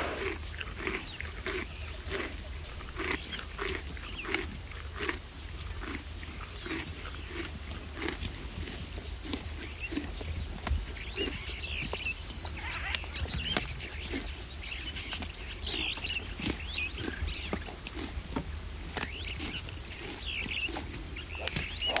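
Burchell's (plains) zebra grazing: a steady run of short tearing and chewing sounds, about two a second. Birds call in the background, mostly in the second half.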